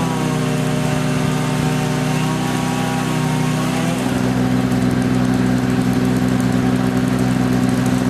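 An engine running steadily near idle. A few upper tones sag slightly over the first few seconds, and it turns a little louder and rougher about four seconds in.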